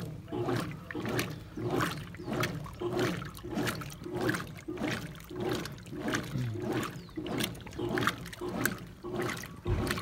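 Brastemp Clean BWC 11 top-loading washing machine agitating a tub of plain water with no clothes, on its standard setting without turbo. The agitator swings back and forth in an even rhythm of about one stroke every 0.6 s, each stroke swishing and sloshing the water.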